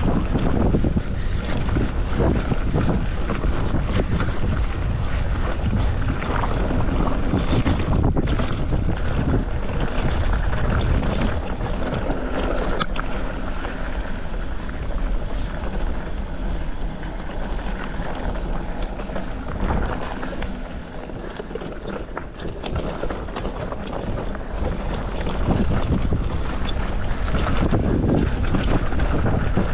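Wind buffeting the microphone while riding a mountain bike down a trail, with the rumble of tyres on dirt and frequent clattering knocks and rattles from the bike. It eases off for a few seconds about two-thirds of the way through, then picks up again.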